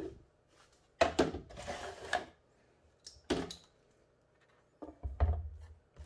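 Hard plastic knocks and scraping as a battery pack of cylindrical LiFePO4 cells in plastic cell holders is lowered and pressed into a plastic enclosure box. Several separate clunks, the first about a second in, with short scrapes between them and quiet gaps.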